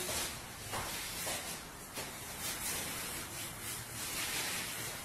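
Paint being worked onto a wall by hand: repeated rubbing swishes about twice a second.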